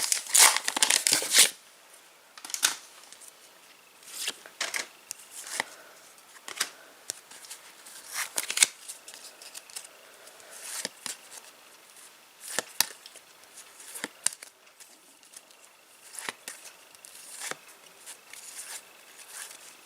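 Foil trading-card pack wrapper crinkling for the first second and a half, then scattered soft clicks and rustles of cards being handled and sorted.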